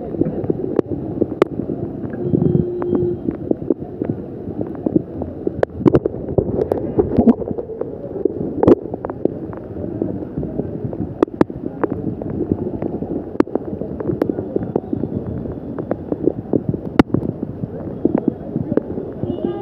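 Floodwater moving and splashing, mixed with wind on the microphone and frequent sharp knocks.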